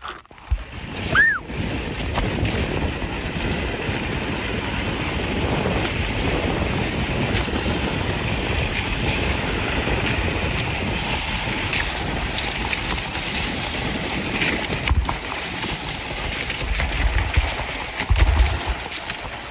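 A sled sliding fast over icy ground: a steady rushing scrape of the sled on the ice mixed with wind buffeting the microphone, with a couple of low thumps near the end.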